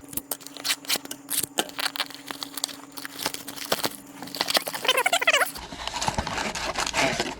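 Hockey card box and pack packaging being handled and torn open: irregular crinkling, crackling and tearing of plastic wrap and cardboard.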